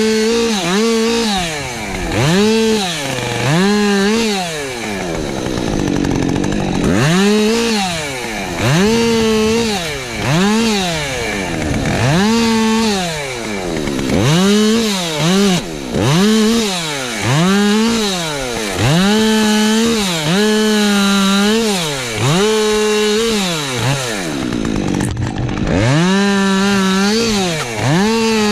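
Husqvarna 550 XP Mark II 50 cc two-stroke chainsaw, revved to full throttle, held briefly and dropped back again and again, about once every second or so, with two short spells at lower revs.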